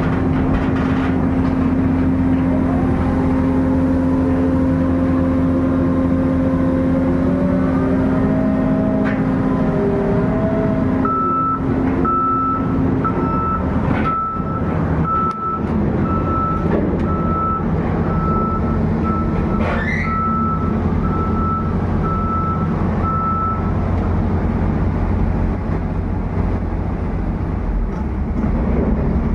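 Diesel engine of a pile-drilling rig running steadily under load, with a wavering whine over it for the first ten seconds or so. About eleven seconds in, a warning beeper starts a regular series of short high beeps that lasts roughly thirteen seconds.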